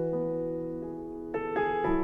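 Soft background piano music: sustained chords fading slowly, with new notes struck about one and a half seconds in.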